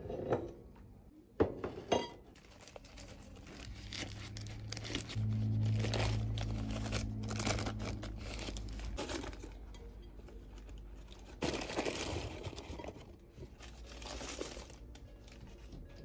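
Paper takeaway bag crinkling and rustling as it is handled and opened, in two long stretches. There are two sharp knocks about a second and a half in, and a low hum under the first stretch of rustling.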